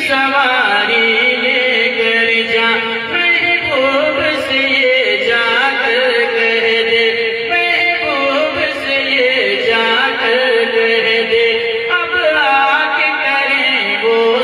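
A man singing an Urdu devotional poem (a manqabat) into a stage microphone. His melodic phrases rise and fall over a steady held drone.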